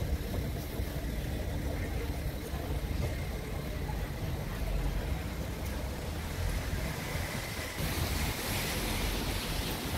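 Wind buffeting the microphone over the low rumble of a narrow-gauge steam locomotive moving off. A steady hiss grows in near the end.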